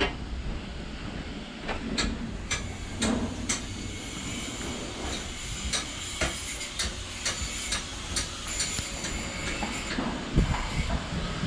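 Yard work noise: irregular sharp knocks and clanks, several in a second at times, over a steady hiss, with a heavier thump near the end.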